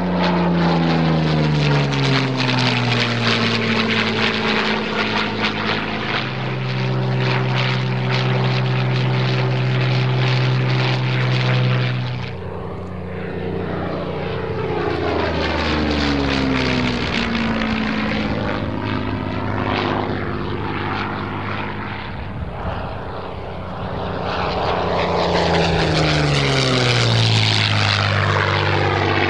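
Yakovlev Yak-3 fighter's V12 piston engine and propeller in a flying display, running loud and steady between fly-bys. Its engine note drops in pitch each time it sweeps past, several times over.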